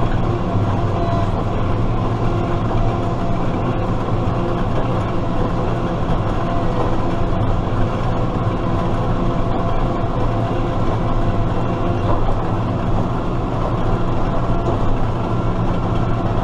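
Tractor engine running steadily at a constant speed while baling hay with a New Holland 570 small square baler.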